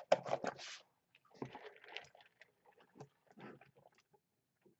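Chewing and mouth sounds, loudest in the first second. Then quieter, scattered rustles as a fountain soda cup is lifted and sipped through a straw.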